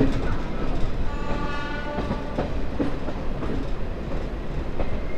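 Diesel-electric multiple unit (DEMU) train running on the track: a steady rumble with a few wheel knocks over rail joints. A train horn sounds for just over a second, about a second in.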